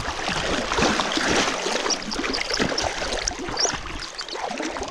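Flowing water splashing and rushing, a steady dense noise full of small crackles, with a few short high chirps in the middle.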